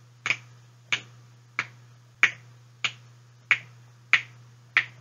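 A person snapping their fingers in a steady rhythm, eight crisp snaps about one and a half a second, over a faint steady low hum.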